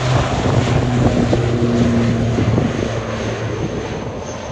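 ATR 72-600 turboprop airliner's engines and propellers running, a steady drone with a low hum that fades about three seconds in. A faint high whine comes in near the end.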